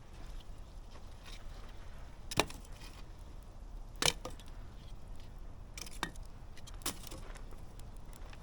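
Wood campfire burning: a steady low rumble of flames broken by sharp crackling pops, the two loudest about two and a half and four seconds in, with smaller pops near six and seven seconds.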